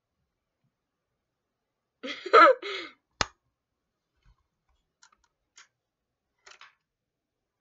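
Mostly quiet room with a short wordless vocal sound from a person about two seconds in, then one sharp click and a few faint ticks.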